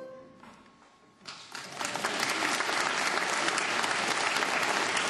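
The choir's final chord fades away in the hall. About a second in, audience applause starts and quickly builds into steady clapping.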